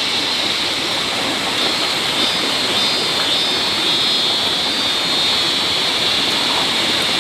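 Heavy rain pouring down, a loud, steady rushing hiss.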